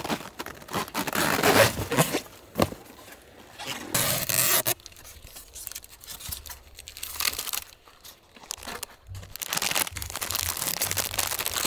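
Plastic packaging and bubble wrap crinkling and rustling as a meal kit is unpacked from a styrofoam box, with several sharper tearing bursts and a few clicks.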